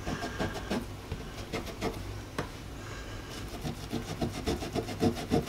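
Damp cloth rubbing back and forth over painted pinstriping on a rusted metal glove box door, wearing the paint down so it looks old. It is a run of short scrubbing strokes that come quicker and more evenly in the second half.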